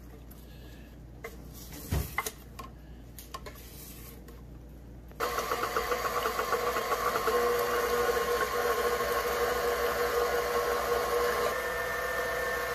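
A few faint knocks, then about five seconds in a KitchenAid Professional 5 stand mixer's motor is switched on and runs steadily, a hum with a fast, even whir as the flat beater churns the cream-cheese batter in the steel bowl.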